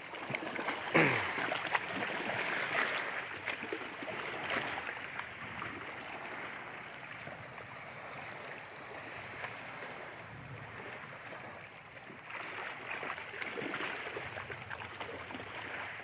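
Lake waves washing against the shore under wind, a steady uneven rush. About a second in, a brief sound falls steeply in pitch.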